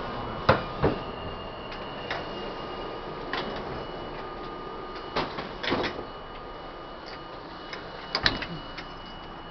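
Interior of a Budd-built R-32 subway car running through the tunnel: a steady rumble with a faint steady whine, broken by sharp clanks and knocks, twice near the start, a few around the middle and one pair near the end.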